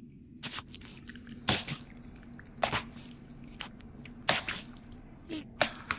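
A spoon stirring raw pork chunks in a thick cornflour marinade in a metal bowl: irregular wet squelches and knocks of the spoon against the bowl.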